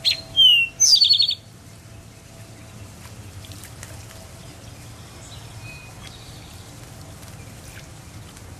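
A small bird calling loudly, three sharp calls in the first second and a half, the last a falling note that breaks into a quick trill. Then only faint, scattered chirps over a steady low background noise.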